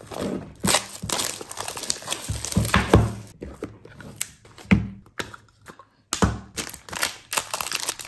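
Plastic shrink wrap crinkling and tearing as a boxed speed cube is unwrapped, then the cardboard box opened and its contents handled, with a few dull knocks of the box among the crackle.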